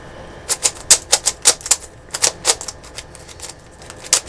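YJ 3x3 puzzle cube's plastic layers being turned by hand: quick runs of sharp plastic clacks, several a second, sparser about three seconds in before picking up again near the end.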